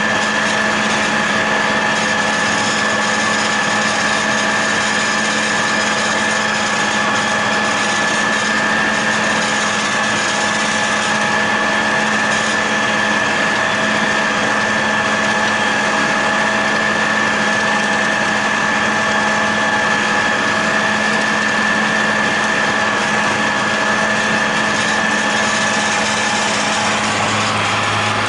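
John Deere 8100 tractor's six-cylinder diesel running under steady load, pulling a John Deere 946 MoCo discbine through standing hay. It makes a constant drone with a steady high whine over it, and a deeper hum joins near the end.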